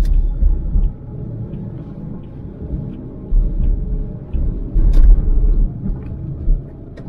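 Low, uneven rumble inside a moving car on a wet road, swelling and easing a few times, with a single sharp knock about five seconds in.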